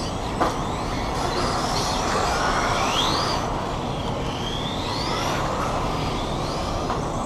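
Radio-controlled touring cars' motors whining as they speed up and slow down around the track, the whine rising in pitch about two to three seconds in and again near five seconds, over a steady rushing noise.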